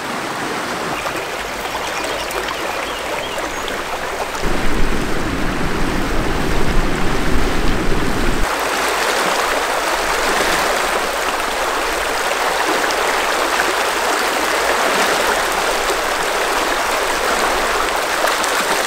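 Mountain river flowing: a steady loud rush of water. About four seconds in the sound turns deeper and louder for some four seconds, then changes abruptly to a brighter hiss.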